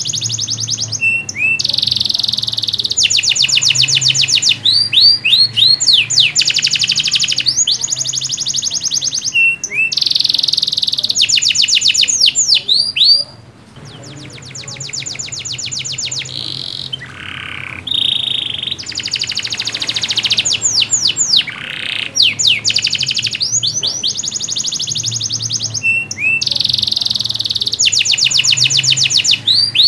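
A domestic canary singing in full song: a long run of rapid trills and quick down-sweeping whistled notes. It breaks off briefly about 13 seconds in, resumes more softly, then builds back to full strength.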